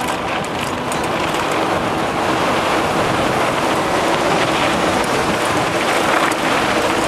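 Steady rush of wind on the camera microphone mixed with the tyres of a Moots 29er mountain bike rolling fast over a dirt and gravel road, with scattered small clicks and rattles.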